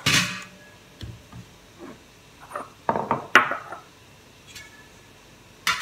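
Kitchenware being handled on a countertop: a sharp clank at the start, a scatter of knocks and clinks about one to four seconds in, and another clank near the end, from a stainless steel pan and dishes.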